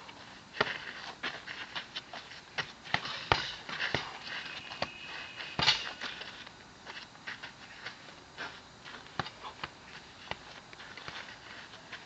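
Punches landing on a hanging heavy bag in irregular flurries of sharp smacks, several a second, the hardest about a third and about halfway through, with the boxer's sharp breathing between strikes.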